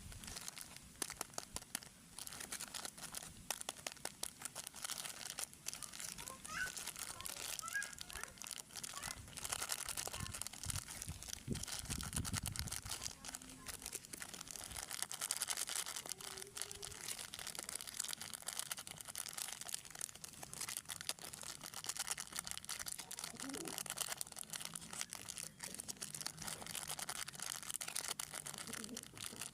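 Plastic snack wrappers crinkling as they are handled: a steady, dense run of small crackles.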